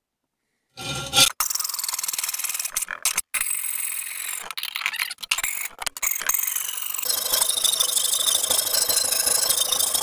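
Hand tool rasping and scraping across a rusty old axe head clamped in a bench vise, cleaning it up for restoration. The scraping starts about a second in and is broken by several abrupt cuts.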